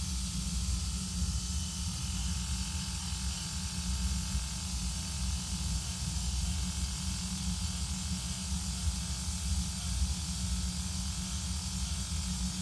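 Dymo LetraTag 100H handheld label maker printing: its small feed motor running steadily as the tape comes out, a low whirr with an even hiss over it.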